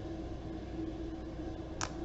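A single short, sharp click of a small hard object being set down or tapped, about two seconds in, over a steady background hum with a constant tone.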